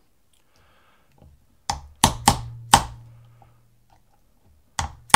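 A hammer tapping a pin punch to drive the extractor roll pin home in a Stoeger M3000 shotgun bolt held in a bench block. Four quick taps come about two seconds in and two more near the end, each with a short metallic ring.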